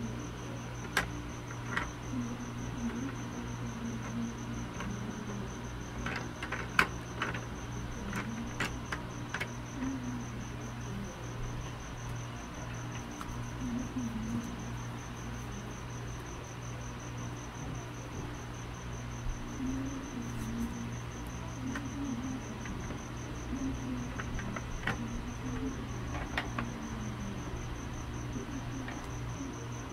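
A cricket trilling steadily at a high pitch over a low steady hum, with scattered sharp clicks of AA battery cells being handled, a cluster of them about six to nine seconds in.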